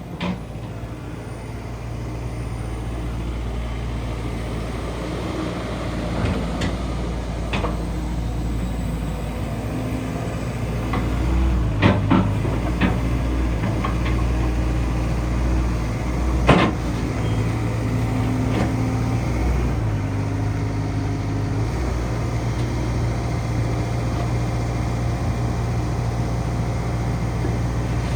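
Diesel engine of a 2019 Hyundai HX160L excavator running steadily, with a few sharp clicks and knocks over it, the loudest about sixteen seconds in.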